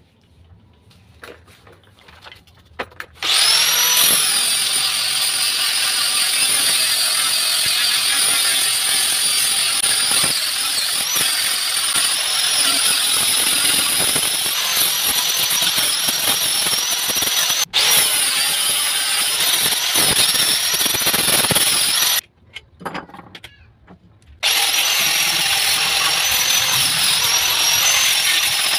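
Electric angle grinder running at full speed with a steady high-pitched whine as it works the wooden bench frame, the pitch dipping slightly under load. It starts about three seconds in, cuts out for about two seconds near the end, then runs again.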